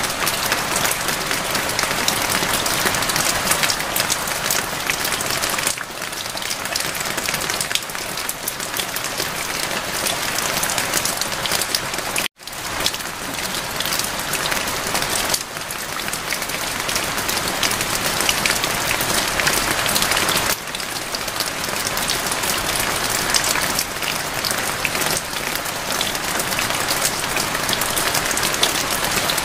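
Steady rain falling, an even dense hiss dotted with many separate drop hits. The sound cuts out for a split second about twelve seconds in, then carries on.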